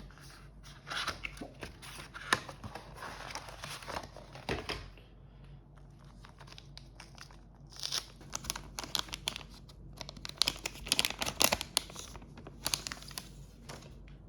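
Crinkly material, such as paper or plastic wrapping, being crumpled and handled in two spells, the second with sharper crackles.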